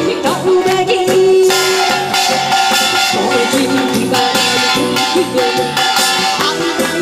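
Upbeat Korean trot-style music with a sung melody and a steady, evenly repeating percussion beat.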